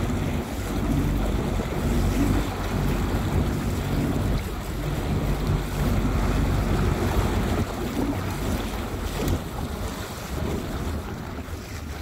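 Wind rumbling on the microphone over the splash of choppy sea water, easing a little near the end.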